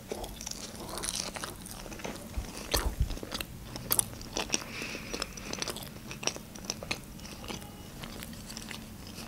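Close-miked chewing of a mouthful of sushi roll, with irregular wet mouth clicks throughout.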